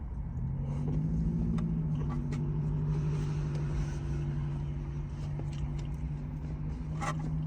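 Engine idling: a steady low hum that stays level at one pitch over a low rumble, with a few faint clicks of eating.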